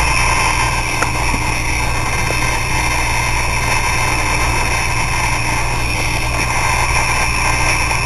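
Maxtor hard drive spinning with bad spindle bearings: a steady harsh whine made of several high tones over a low hum, with a small click about a second in.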